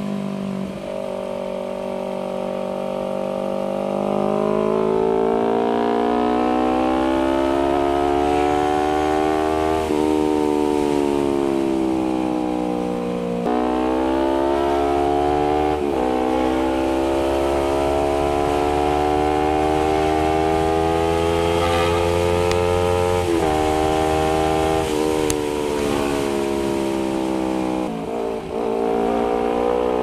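Honda CBR250RR parallel-twin engine through an R9 GP SS aftermarket exhaust, accelerating with its pitch climbing steadily, then dropping sharply several times as it shifts up through the gears.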